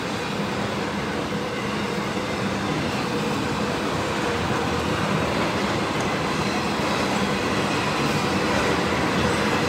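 Freight train of autorack cars rolling past, a steady noise of steel wheels on the rails.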